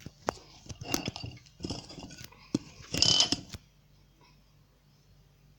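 Slime being stirred and squeezed in a bowl: an irregular run of sticky clicks and squelches that stops about three and a half seconds in.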